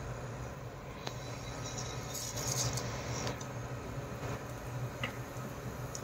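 Cumin seeds dropped into warm oil in a nonstick pan, giving a brief soft hiss and patter about two seconds in, over a steady low hum, with a few faint clicks.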